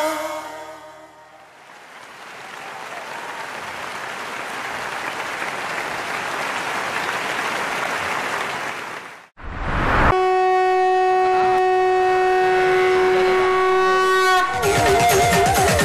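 Dance music fades out, then an audience applauds for several seconds, swelling before it cuts off abruptly. A long steady held note follows, and music with a wavering melody starts near the end.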